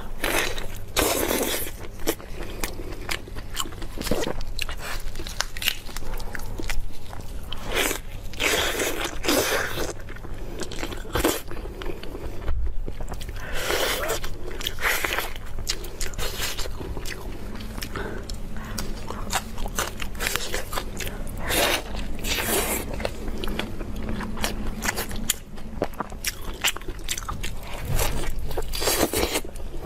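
Close-miked eating: a person biting, crunching and chewing food, with many small crackling clicks and a few louder, noisier bites.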